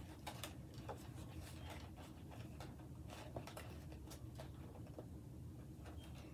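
Faint rustling and small scratchy ticks of folded card stock being handled and pressed together, as a glued paper box is fitted onto a cardstock board.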